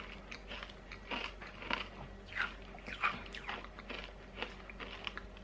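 Chewing a mouthful of Nerds, small hard sugar candies, in a string of irregular soft crunches.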